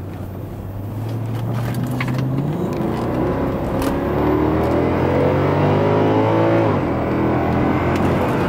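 2009 Mercedes-Benz S63 AMG's 6.2-litre V8 accelerating hard, heard from inside the cabin. The engine note climbs steadily and grows louder for several seconds, then drops sharply with an upshift about seven seconds in and pulls on.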